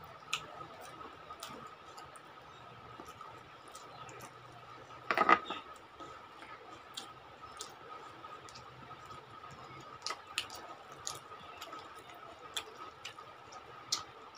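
Close-up eating sounds: fingers mixing and squishing rice with curry, with chewing and lip smacks making scattered small clicks. A faint high steady whine runs underneath, and one louder short noise comes about five seconds in.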